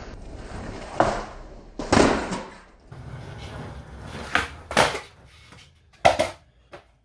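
Skateboard on a concrete floor during heelflip attempts: several sharp clacks and thuds of the deck and wheels popping and landing, the loudest about two seconds in and a sharp one near the end, with wheels rolling in between.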